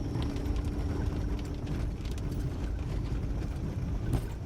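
Subaru engine running with a steady drone that stops about four seconds in, over a low rumble with scattered clicks and knocks.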